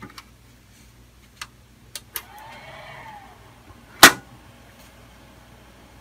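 Small server being switched on: a few light clicks, then a faint whine that rises and falls for about a second, then one loud sharp click about four seconds in, over a low steady hum.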